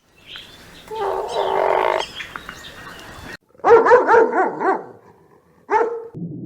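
Dog barking: a quick run of about six short barks, then one more, after an earlier longer call.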